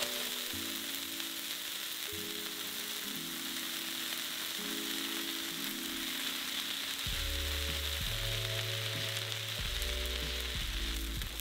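Shredded cheese sizzling with a steady hiss as it melts on the hot ridged plate of an electric contact grill. Soft background music plays underneath, and a low bass line joins about seven seconds in.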